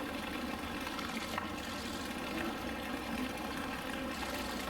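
Steady rush of running water, even and unbroken, with no splashes standing out.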